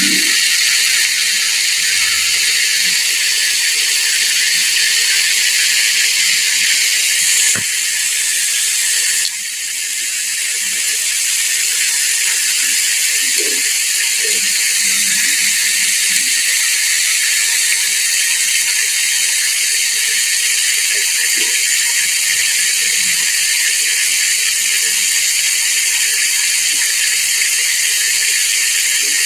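Hot oil sizzling steadily around a whole chicken deep-frying in a pot: a dense, even hiss.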